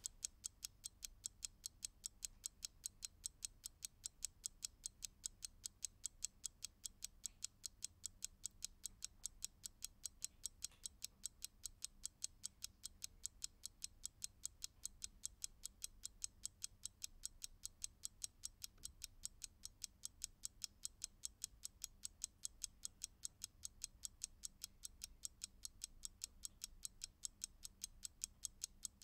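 Old Russian Slava mechanical alarm clock ticking: quick, even, sharp ticks, several a second, keeping a steady beat throughout.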